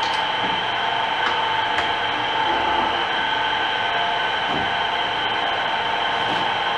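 Milling machine running with a boring head in the spindle, boring the pressed-in intermediate-shaft bushing of an LT230 transfer case housing out to final size. It makes a steady whine with a few light ticks.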